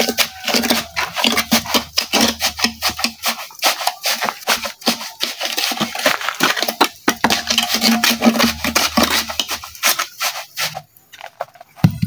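Steel tamping rod ramming wet concrete down into a steel culvert mould, rapid irregular knocks and clinks, compacting the concrete. The pounding stops near the end.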